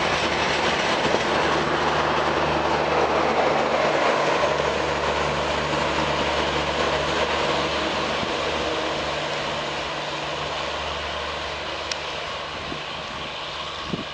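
Indian Railways passenger coaches rolling past close by, their wheels running on the rails in a steady rumble. The sound fades from about halfway through as the end of the train, a luggage van with its last-vehicle marking, passes and moves away.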